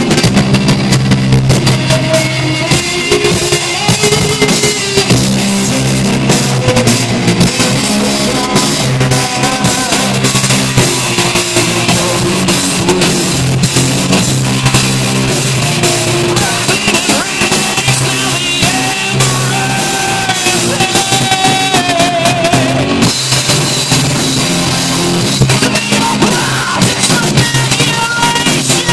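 A heavy metal band playing live and loud, with electric guitars and a drum kit.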